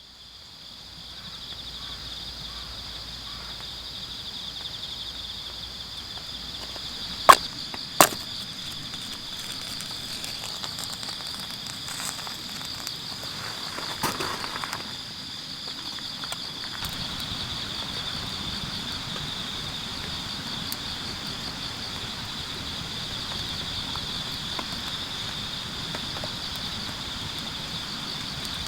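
A steady high-pitched chorus of insects, rising in over the first couple of seconds. Two sharp clicks come close together about seven and eight seconds in, and there is a brief rustle around fourteen seconds.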